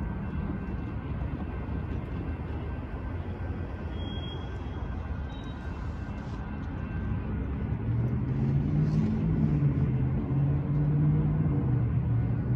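Steady low rumble of passing road vehicles. About eight seconds in, a deeper engine hum grows louder and holds.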